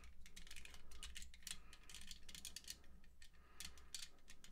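Faint plastic clicks and rattles of a Hot Rod Transformers figure's legs and joints being turned back into place by hand, a string of irregular small clicks.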